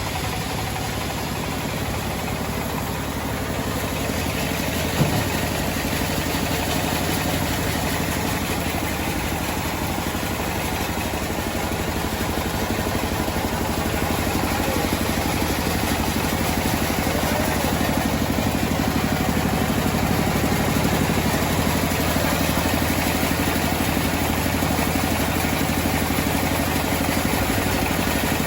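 Homemade sawmill's engine running steadily, with a single sharp knock about five seconds in. The sound grows slowly louder through the second half.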